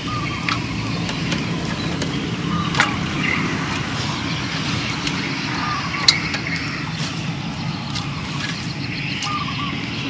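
Outdoor ambience: a steady low rumble with scattered faint chirps and a few sharp clicks, the loudest about six seconds in.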